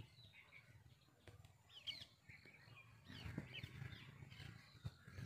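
Faint outdoor ambience of small birds chirping on and off, over a low rumble, with two soft ticks, one about two seconds in and one near the end.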